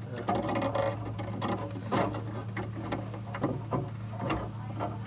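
Irregular clicks, knocks and scraping of hand tools tightening a loose electrical terminal on a window air conditioner, over a steady low hum.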